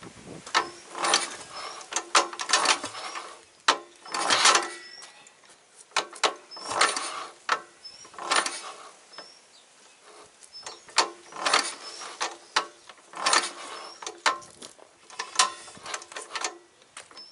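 JAP engine of a Ransomes Matador mower being cranked over by hand for a spark test. About eight pulls, each a quick clattering run of clicks from the starter and the turning engine. It does not fire or run.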